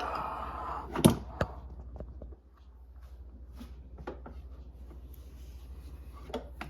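Electric kettle and its power base being handled on a counter: a short rustle, a sharp knock about a second in and a lighter one just after, then a few faint clicks and taps.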